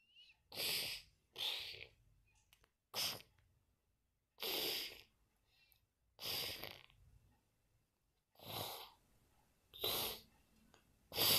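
About eight short hissing, breath-like huffs, each under a second, coming roughly every one to one and a half seconds with silence in between.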